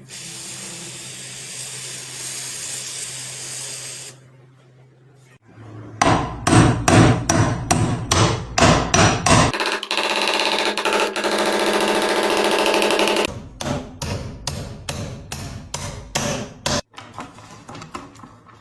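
Hammer blows struck in quick runs of about three or four a second, in two spells, with a steady hiss and then a steady whirr of a power tool between them.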